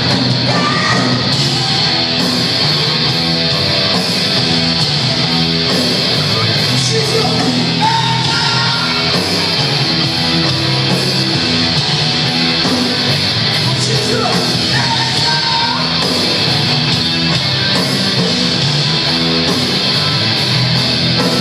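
A live punk rock band playing loudly, with distorted electric guitars, drums and a singer, heard from among the audience.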